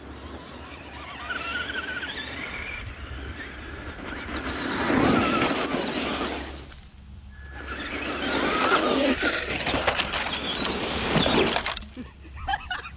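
Two electric RC cars driven hard on gravel: their motors whine and rise in pitch as they speed up, and their tyres spray gravel in two loud passes about four and eight seconds in. Near the end a car crashes into the metal ramp.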